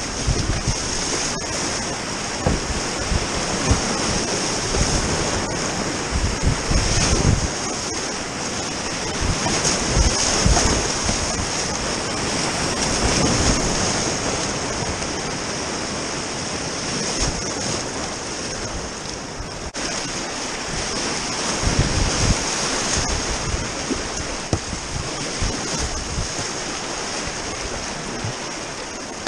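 Whitewater rapids rushing loudly around a kayak, with irregular low rumbles of wind buffeting the microphone.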